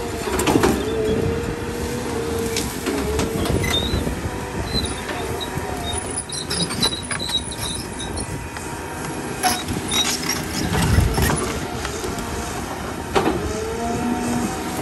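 Caterpillar hydraulic excavator's diesel engine running under load while the bucket digs into soil and rips out brush. A whine wavers in pitch as the arm works, with several knocks and crunches from the bucket, earth and branches.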